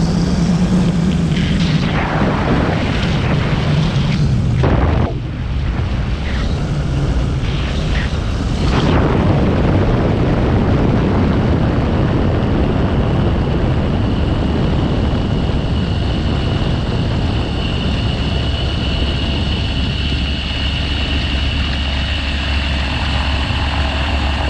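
Airborne XT-912 trike's Rotax 912 flat-four engine and pusher propeller running, with wind buffeting the microphone in gusts. About five seconds in the engine note drops as power comes off for the landing, and the engine then runs steadily at low power through the landing roll.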